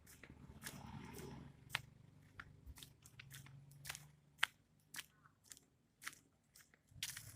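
A person eating close to the microphone: chewing, with irregular sharp crunches and clicks.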